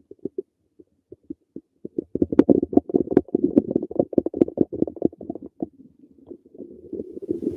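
Human stomach gurgling: a few faint pops at first, then from about two seconds in a long run of rapid, bubbling gurgles that thins out briefly near the end before building again.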